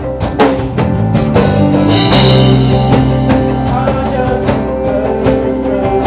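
Band music: drums beating steadily under sustained chords, with a crash about two seconds in.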